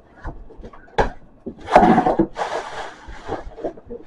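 Household objects being handled: a sharp knock about a second in, then rustling and rubbing.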